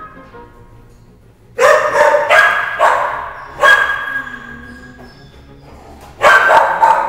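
A dog barking in a kennel, each bark ringing off the hard walls: a quick run of barks about a second and a half in, one more near the middle, and three rapid barks near the end.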